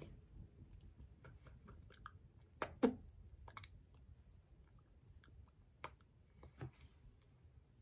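Faint, scattered lip smacks and small clicks as freshly applied lipstick is pressed and worked between the lips, the loudest a quick pair a little under three seconds in.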